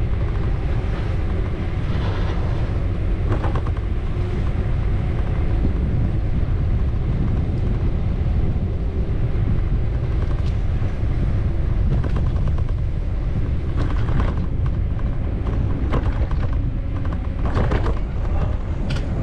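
Steady low rumble of wind buffeting the microphone and road noise from a camera riding on a moving bicycle, with a few brief clicks and faint street sounds.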